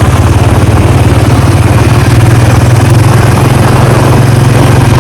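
Motorcycle engine running steadily, loud and close, with a constant low hum.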